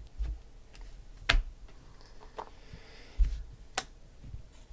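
Stacks of trading cards being set down and squared on a tabletop: a few sharp clicks and knocks, one with a soft low thump, and a brief faint rustle of cards sliding between them.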